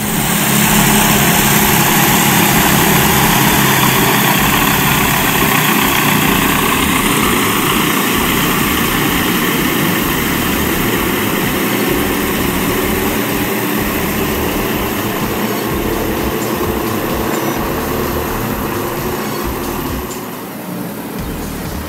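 Lockwood Aircam's twin engines and propellers running steadily: a loud, dense drone with a few steady low tones, easing slightly near the end.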